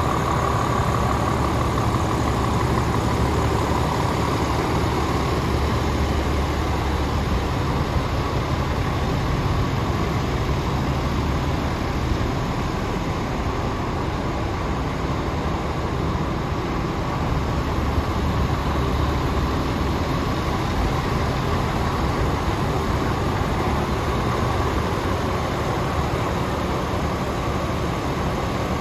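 Scania P450 tractor unit's 13-litre six-cylinder Euro 6 diesel engine idling steadily.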